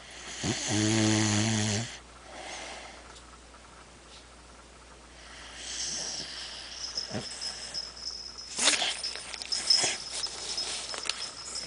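Dog snoring: one loud snore lasting over a second, starting about half a second in, followed by a softer breath. In the second half there is rustling with a thin high whine and a couple of sharp clicks.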